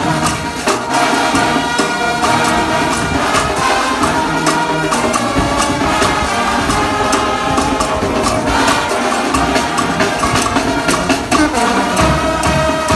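Brass band playing a Ghanaian gospel tune live: trumpets, trombones, baritone horns and a sousaphone sounding together over a steady percussion beat.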